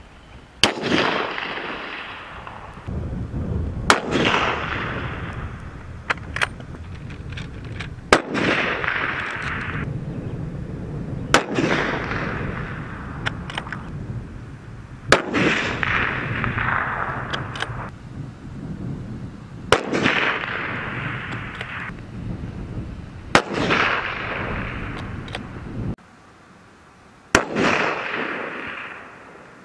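About eight single rifle shots from a Tikka T3 Tactical bolt-action rifle in .308 Winchester. Each is a sharp crack followed by a rolling echo that dies away over two to three seconds, and they come every three to four seconds.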